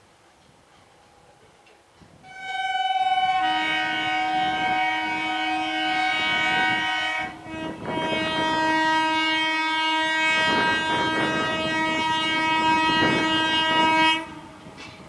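Indian Railways electric train's horn blown in two long blasts: it starts on a single note, swells into a fuller chord, breaks briefly, then sounds again for several seconds before cutting off. The clatter of the passing train's wheels runs under the second blast.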